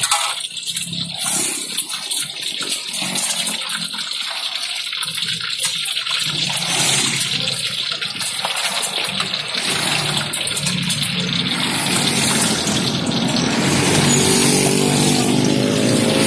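Eggs deep-frying in a small pan of hot oil, the oil sizzling and bubbling steadily. Near the end an engine is heard running.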